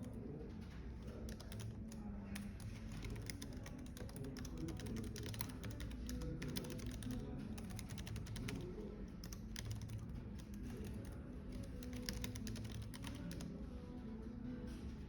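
Computer keyboard typing, a steady run of irregular keystroke clicks, over low cafe background ambience.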